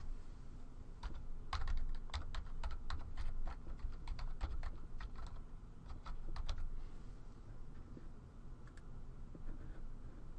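Typing on a computer keyboard: an uneven run of keystrokes that thins out after about seven seconds, over a low background rumble.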